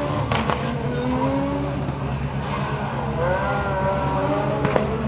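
Rally car engine revving through a tight turn, its pitch rising and falling with the throttle, with a sharp crack about half a second in and another near the end.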